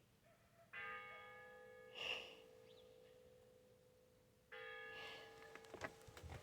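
Church bell tolling: one bell struck twice, about four seconds apart, each stroke ringing out and slowly fading. A brief noise comes about two seconds in, and a few faint clicks near the end.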